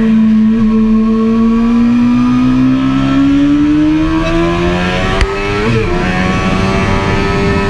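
Sport motorcycle engine heard from an onboard camera, pulling under acceleration with its pitch rising steadily, then an upshift just before six seconds in, with a sharp click shortly before it; wind rush runs underneath.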